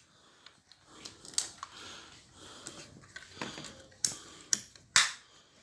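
About half a dozen sharp clicks and knocks from handling equipment, most of them in the last two seconds, with quiet rustling between.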